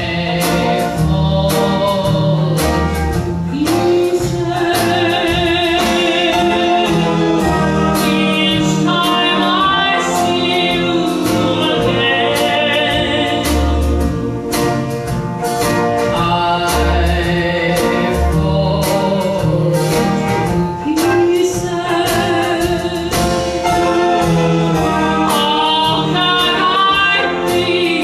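A woman singing a slow country ballad, holding long notes with vibrato, backed by a live band with a plucked upright bass on the low notes.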